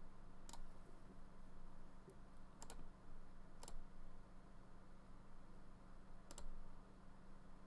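Computer mouse clicks, four of them a second or more apart, some doubled, over a faint steady hum.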